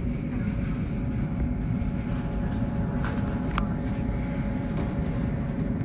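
Steady low rumble of a push-pull commuter train running, heard from inside a passenger coach, with one brief sharp click about three and a half seconds in.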